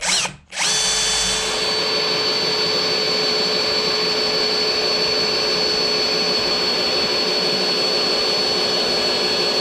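Electric drill drilling a hole through metal held in a vise. It gives a short rising whine as it spins up, then runs at a steady speed with a constant whine while the bit cuts.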